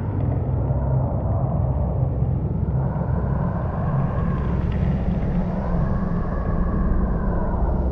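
Designed sci-fi alien-landscape ambience: a constant deep rumble under slow, eerie howling sweeps that rise and fall every few seconds, like an alien wind.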